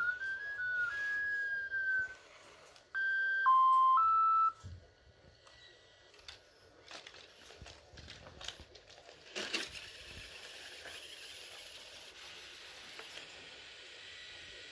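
Sony Aibo robot dogs' electronic tone calls: a gliding beep phrase, then a short stepped tune of three beep notes about three seconds in. Then come soft clicks and whirring of leg servos as the black Aibo gets up, a sharp click near ten seconds in, and a steady hiss.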